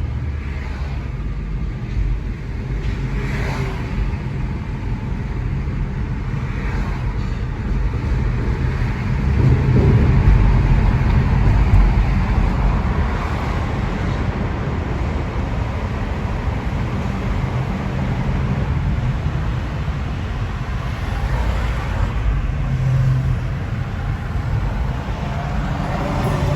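A car driving on the road: steady engine and tyre noise, growing louder for a few seconds about ten seconds in as it pulls away from a green light.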